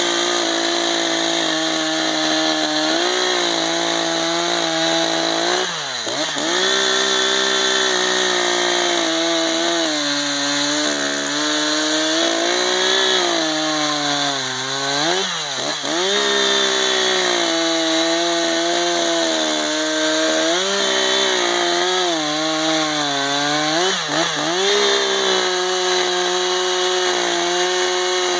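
Two-stroke chainsaw running hard at high revs through cuts in wood, its pitch briefly dropping and recovering about three times.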